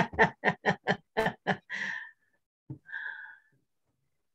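A woman laughing in a quick run of short 'ha' pulses that trail off into two breathy sighing exhales, heard over a video call.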